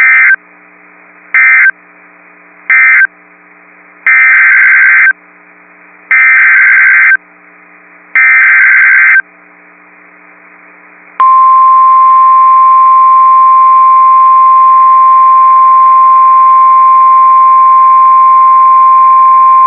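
Emergency Alert System / NOAA Weather Radio tones: three short digital data bursts (the end-of-message codes closing the previous alert), then three longer SAME header bursts, then the single steady warning alarm tone held about nine seconds. They are heard over a faint radio hum.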